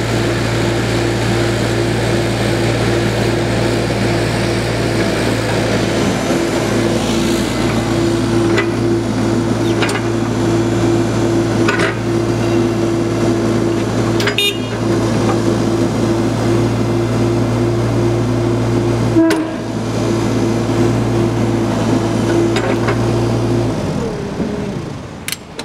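Kubota diesel engine and hydraulics of a 4-ton mini excavator running steadily at working speed while the boom and bucket swing, with a steady whine over the engine noise and a few sharp clicks and knocks. The sound stops and fades near the end.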